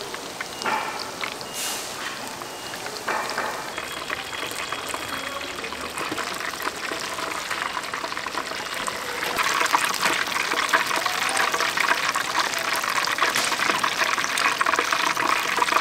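Battered food deep-frying in a vat of hot oil, a dense steady crackling sizzle that grows louder about nine seconds in.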